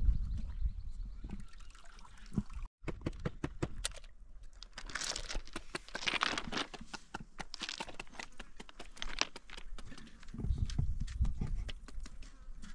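Liquid splashing, with many small clicks and knocks and a brief dropout about three seconds in.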